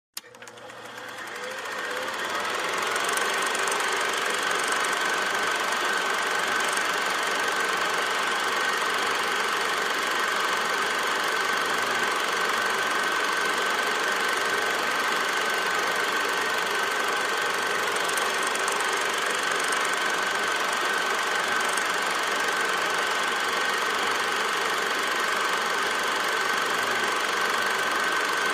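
16 mm film projector running: a steady mechanical whir and clatter with a constant high tone, fading in over the first couple of seconds.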